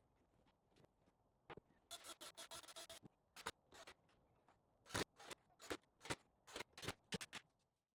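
Hand-work noises: a quick run of scraping about two seconds in, then irregular sharp knocks and clicks, the loudest about five seconds in.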